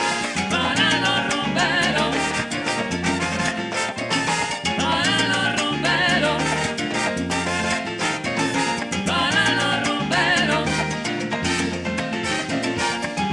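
Live Latin dance band music played loud through a stage PA, with a repeating bass line, percussion and a wavering lead melody.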